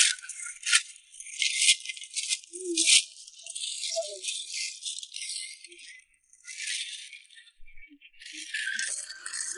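Flat metal spade scraping and scooping through a thick mass of mussels on a boat's hull, the shells rattling and clattering in irregular strokes. The loudest strokes come about two and three seconds in.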